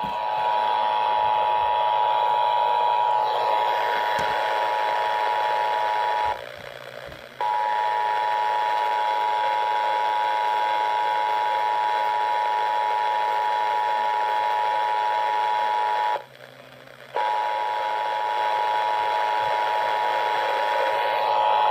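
Emergency Alert System attention signal broadcast over radio: two steady tones sounding together as one shrill alert, broken twice by gaps of about a second.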